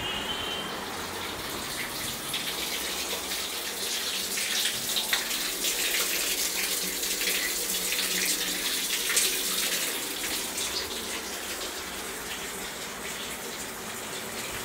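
Water running from a wall tap and splashing onto a wet floor cloth and mop head, a steady hiss with crackle that swells a couple of seconds in and fades after about ten seconds.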